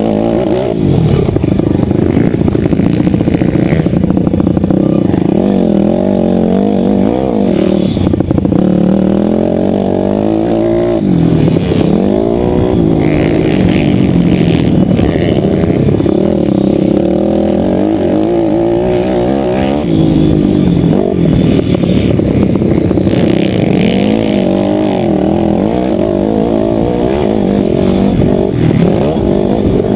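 Motocross bike's engine running hard through a race lap, its pitch rising and falling again and again as the rider accelerates, shifts and backs off.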